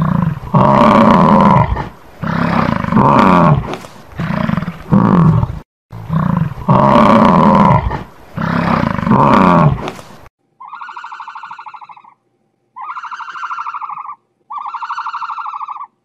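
American bison bellowing: about five loud, deep calls in quick succession. About ten seconds in the sound changes to three shorter, buzzing calls from another animal.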